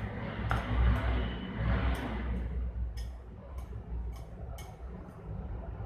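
A hand rubbing oil over rolled-out paratha dough on a wooden board, with a soft rubbing noise, then a quick series of light clicks in the second half. A steady low hum runs underneath.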